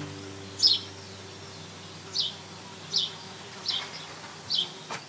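Short, high chirps that fall in pitch, repeating roughly once a second over a faint high hiss. The faint tail of a song fades in the first seconds.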